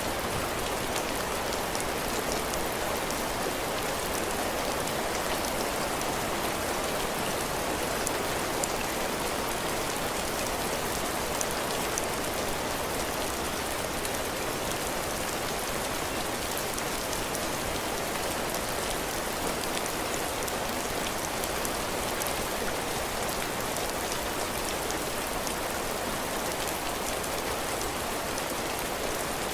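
Heavy rain falling steadily, a dense even hiss with a scatter of distinct drops striking the roof and the ground around a cabin porch.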